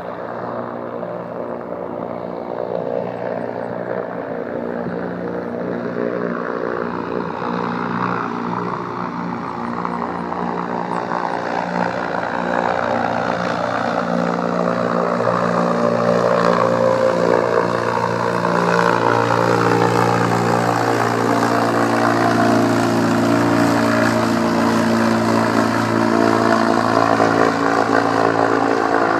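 Goodyear blimp's propeller engines running as it flies in low overhead: a steady engine hum that grows steadily louder as it approaches.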